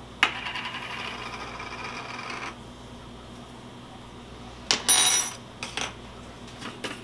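Spice jar and metal measuring spoons being handled while measuring dried oregano. A click opens a rustling shake of about two seconds, and about five seconds in comes a bright, ringing metallic clink of the spoons.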